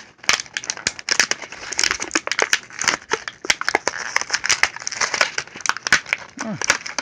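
Thin clear plastic blister tray crinkling and crackling, with many sharp irregular clicks, as a small action figure is worked loose from it by hand.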